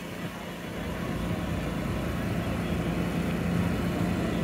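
A steady engine hum that grows louder about a second in, over a faint background of crowd chatter.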